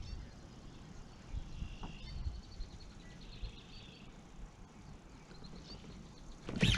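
Songbirds singing in the background, several runs of quick repeated chirps and trills, over a low rumble of wind and handling noise; a sudden loud noise breaks in near the end.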